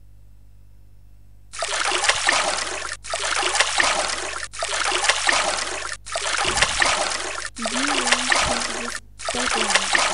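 Water sound effect of an animated koi-pond projection: trickling, splashing water that starts about a second and a half in and plays in repeated segments about a second and a half long, separated by brief gaps.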